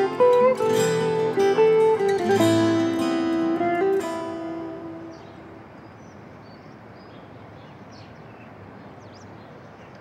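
Background score on acoustic guitar, a plucked melody that fades out about four to five seconds in, leaving only a faint steady background hiss.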